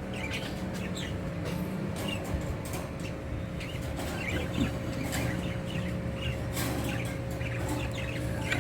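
Small caged pet birds chirping in short, scattered calls, over a steady low hum.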